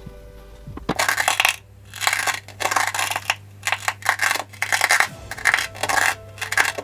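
Kinetic sand being cut: a run of gritty, crunching scrapes, about eight strokes in quick succession starting about a second in.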